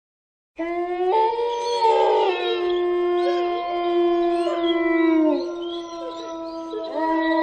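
A horror sound effect of overlapping canine howls: several long, drawn-out pitched voices held together, some sliding down in pitch, starting abruptly about half a second in.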